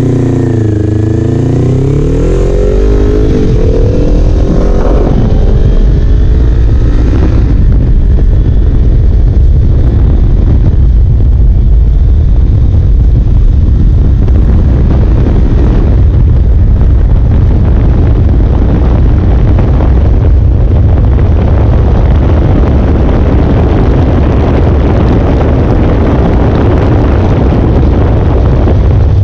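Kawasaki Ninja 400 parallel-twin engine accelerating hard, its pitch climbing in several steps as it shifts up through the gears. After about seven seconds loud wind rush on the microphone at speed drowns out most of the engine.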